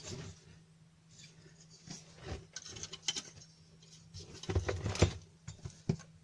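Irregular clicks, taps and scraping of a power supply's circuit board being handled and turned over on a workbench.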